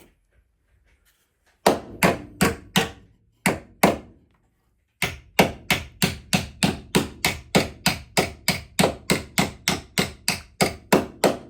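Hammer blows on a bent metal bracket of a crash-damaged car as it is knocked back straight: a few strikes with pauses, then a long steady run of about four blows a second.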